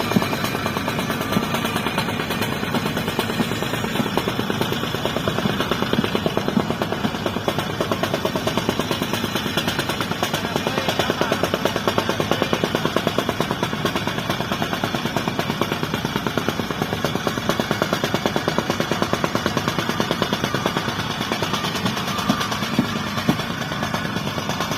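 Diesel engine of heavy construction machinery running under load, a steady, rapid clatter.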